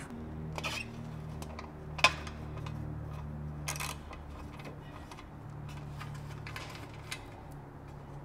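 Scattered light metal clicks and taps of hand tools working the outer bolt of a motorcycle's exhaust heat shield, one sharper tap about two seconds in, over a steady low hum.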